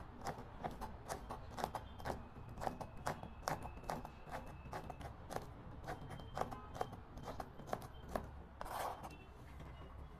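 Chef's knife chopping vegetables on a plastic cutting board: quick, irregular knocks, a few a second. About nine seconds in comes a short scrape as the blade gathers the chopped pieces.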